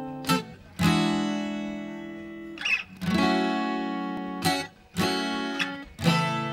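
Background music: acoustic guitar strumming chords, each left to ring and fade before the next, the instrumental opening of a pop song.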